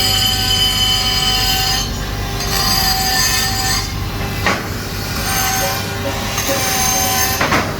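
Atlas Copco LSF29 pneumatic die grinder running at speed: a steady high whine whose pitch dips a few times, with a short scraping sound about halfway through and again near the end.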